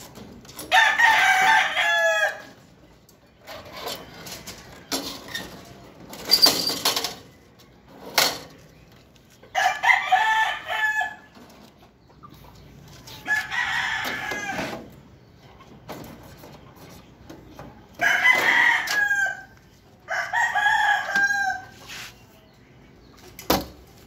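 Roosters crowing, five crows a few seconds apart, each about a second and a half long. Between them the aluminium cage panels are handled, with a loud rattling clatter partway through and a couple of sharp knocks.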